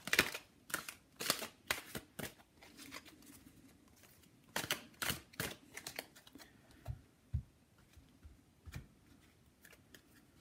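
A tarot deck shuffled by hand: two flurries of quick card rasps, then scattered soft taps as the deck is cut and piles are set down on the table.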